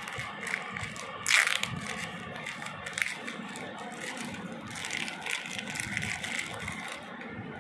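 Clear plastic bag crinkling and crackling as hands open it, in irregular bursts with a sharp, louder crackle about a second and a half in and more around three and five seconds.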